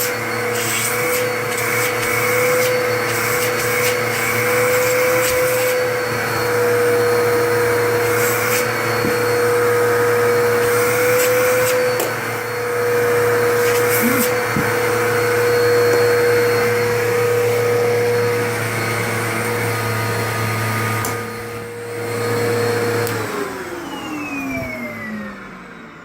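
Carpet Pro CPU-1 upright vacuum running steadily with a constant motor whine, then switched off near the end, the whine falling in pitch as the motor spins down.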